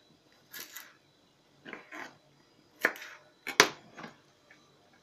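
Small kitchen knife clicking and scraping on a plastic cutting board as garlic cloves are cut and peeled: a handful of short, separate clicks and rustles, the sharpest about three and a half seconds in.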